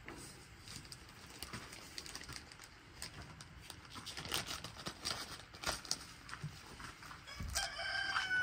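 A rooster crows near the end, one long held call. Before it there are scattered light clicks and rustles as a plastic zip bag of cotton balls is handled.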